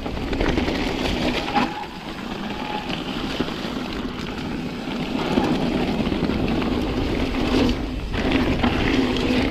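Mountain bike riding fast down a rough, stony forest trail: a steady rumble and crunch of the tyres over rock and gravel, with small knocks and rattles from the bike.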